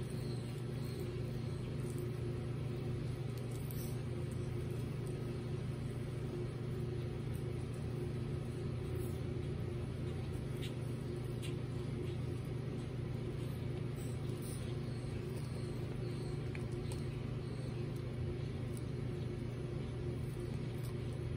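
A steady low machine hum with a few even tones above it, unchanging throughout, with a few faint clicks near the middle.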